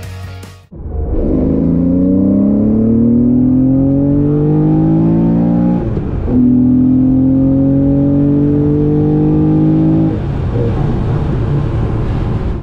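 Porsche 911's air-cooled flat-six engine accelerating hard, its pitch rising through one gear, a quick upshift about six seconds in, then climbing again through the next gear before easing off to cruise near the end.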